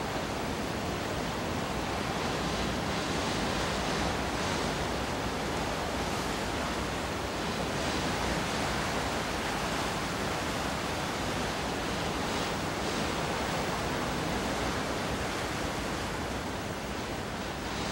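Steady rush of wind and sea water along a ship under way, an even noise with no distinct events.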